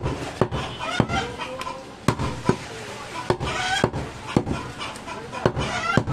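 A heavy butcher's cleaver chopping goat meat and bone on a wooden chopping block, about two sharp chops a second, with short animal calls in the background a few times.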